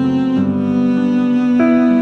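Background music of slow, sustained bowed-string notes in a low register, changing pitch about every second.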